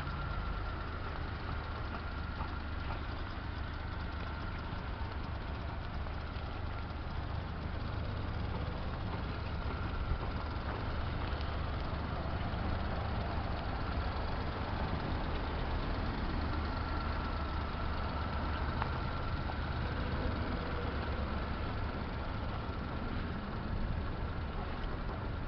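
Suzuki Carry kei truck's small three-cylinder engine idling steadily.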